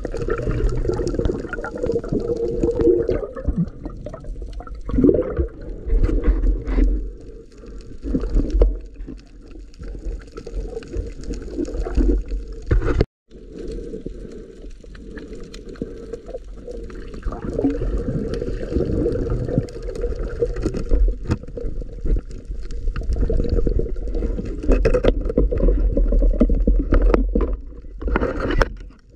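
Water sloshing and gurgling close around the microphone, in irregular surges. The sound breaks off completely for an instant about 13 seconds in, then carries on.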